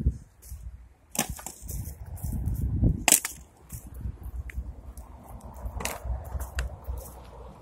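Splitting maul striking firewood rounds: two sharp cracks about two seconds apart, the second the louder, followed by a few fainter knocks over a low rumble.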